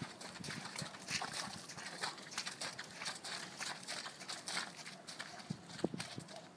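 Skewbald cob's hooves trotting on a wet, muddy arena surface: a quick, irregular run of soft hoofbeats. A brief pitched sound is heard near the end.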